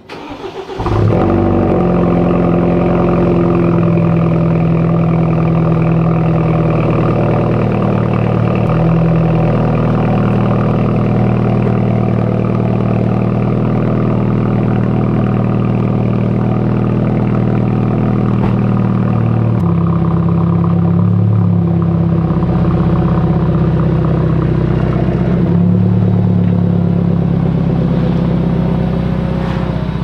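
BMW F30 3 Series car engine starting about a second in, then running steadily, its note shifting abruptly a few times.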